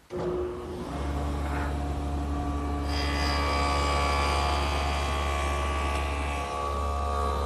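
Table saw fitted with a stacked dado head cutter switching on and running up to speed, then running with a steady hum. About three seconds in, a higher whine joins and holds.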